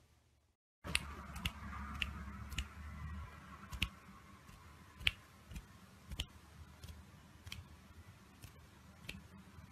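Scattered sharp clicks, irregular and about one every half second to a second, over faint room hum.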